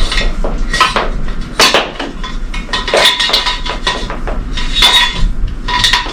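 Generator wiring being fed through the hollow upper tower section of an EnergiSeedling wind turbine, knocking and scraping against the inside of the tube. The knocks come irregularly, and several of them ring briefly at the same pitch.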